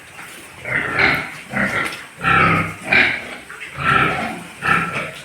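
Several pigs squealing and grunting in a string of loud, harsh cries, about one every half-second to second, as they scuffle and fight in their pen.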